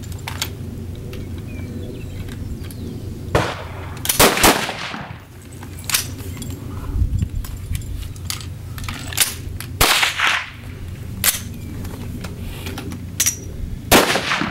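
Rifles firing on a highpower match line: a dozen or so sharp shots from several shooters at uneven intervals. Some are near and loud, about four and ten seconds in and again near the end, and others are fainter and farther down the line.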